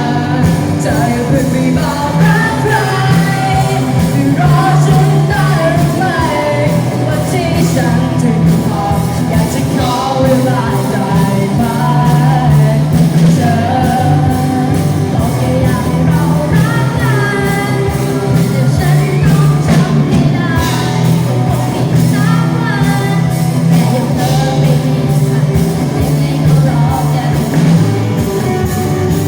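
A band playing rock-style music, with a voice singing a melody over it.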